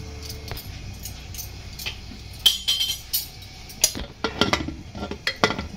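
A metal ladle and the lid clinking and knocking against an aluminium pressure cooker as the pot is stirred and closed. There are scattered sharp metal clicks, coming thick and fast in the last couple of seconds.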